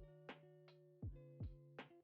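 Background music with a regular beat and sustained pitched notes.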